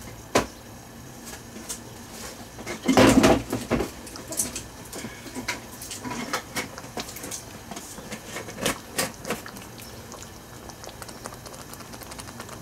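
Thick tomato meat sauce simmering in a pan on a gas burner, its bubbles popping irregularly, with one louder burst about three seconds in.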